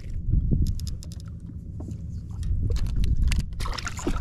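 Low wind rumble on the microphone, with scattered sharp clicks and knocks throughout.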